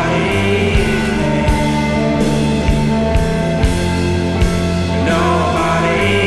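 Live psychedelic rock band playing, with sustained held tones over a regular drum beat and cymbal wash.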